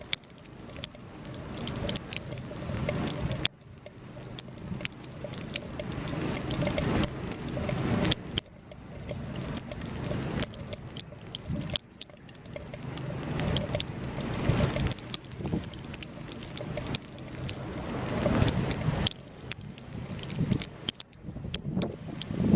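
Blizzard wind buffeting the camera's microphone: a rumbling rush that swells up in gusts and drops off suddenly, several times over.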